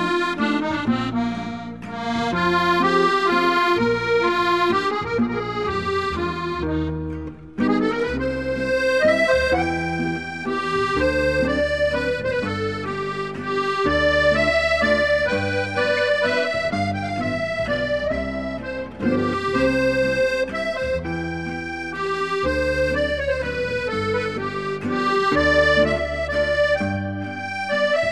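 Instrumental accordion music: a melody over regular bass notes, with a brief break about seven and a half seconds in before it carries on.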